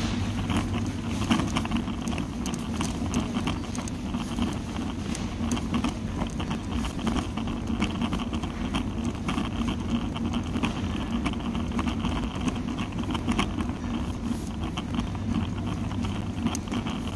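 Background noise of a large supermarket heard while walking through it: a steady low hum with frequent small, irregular clicks and rattles.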